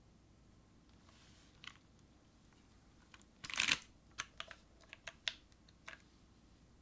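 Scattered clacks from the TGR Jane V2 CE mechanical keyboard with Cherry Hyperglide Brown switches: one click, then a short louder clatter about halfway through, followed by half a dozen separate clicks.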